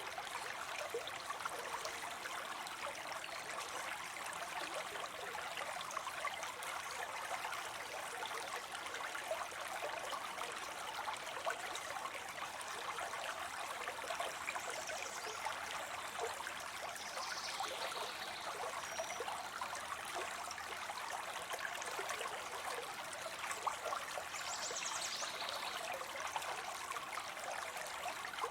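Water spilling steadily into a pond, a continuous splashing and trickling without let-up. A few faint high chirps come through about halfway in and again near the end.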